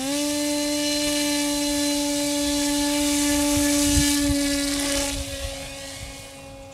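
Cheetah 2212-13 brushless electric motor spinning a 9x6 APC pusher propeller at three-quarter throttle: a steady whine at one pitch. It is loudest around the hand launch, about four seconds in, then fades as the plane flies away.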